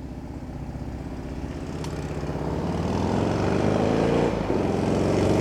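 A small engine running and drawing nearer, growing steadily louder, with a brief dip about four and a half seconds in.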